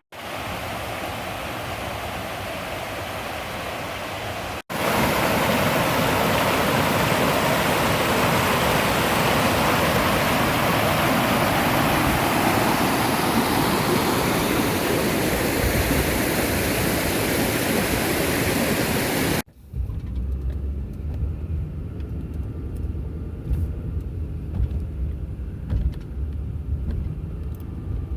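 Steady rushing water from a creek or waterfall, cut off sharply twice. About two-thirds of the way through it gives way to the low, steady rumble of a car driving.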